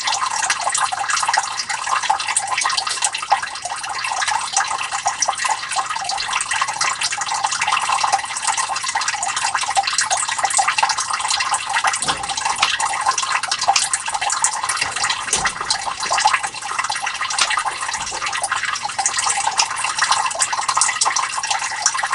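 Water steadily trickling and splashing into a sump pit, with fine dripping crackle. The level is still below the float, so the sump pump has not yet switched on.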